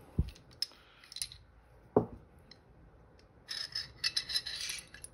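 Steel parts of a Beretta 92X slide and barrel knocking and clicking together as the barrel is worked out of the slide: a dull knock at the start, a sharper metal knock about two seconds in, then a quick run of small metallic clicks and rattles near the end.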